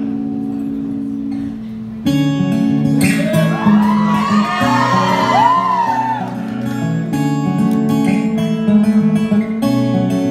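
Acoustic and electric guitar playing together live: a held chord rings and fades for about two seconds, then both come in with a picked, rhythmic part. High notes slide up and down over it for a few seconds in the middle.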